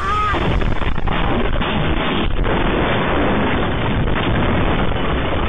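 A school bus and a bucket truck colliding, heard through the bus's dashcam: a short high tone at the start, then a loud, continuous crashing and grinding noise with several sharper knocks.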